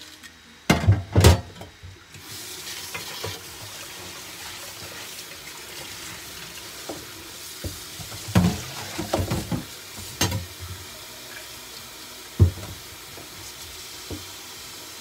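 Kitchen tap running in a steady stream, turned on about two seconds in and stopping near the end. Sharp knocks and clatters of kitchen utensils: two loud ones about a second in, a cluster a little past the middle, and one more later.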